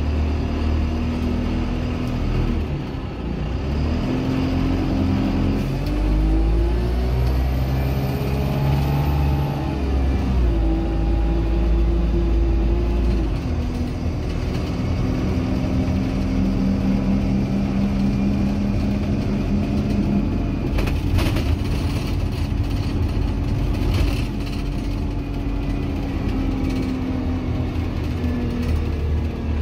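Dennis Dart SLF bus with a Euro 3 Cummins engine and Allison 2100 four-speed automatic gearbox, heard on board while under way: the engine note climbs and drops several times as the gearbox changes gear, then holds a steady pitch at cruise, with a few brief knocks about two-thirds through.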